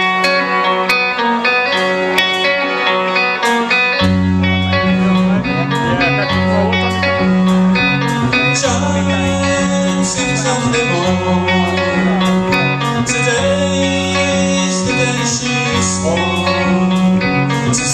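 A band playing the instrumental introduction of a song: guitars picking a repeating pattern, with a bass line coming in about four seconds in.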